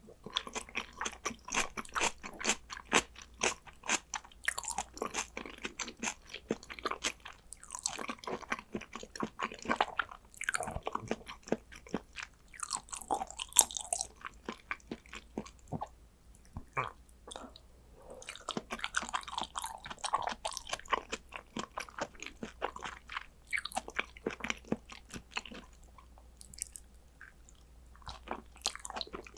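Close-miked chewing and biting of someone eating soy-sauce-marinated salmon: a dense run of small clicky mouth sounds, thinning out briefly around the middle and again near the end.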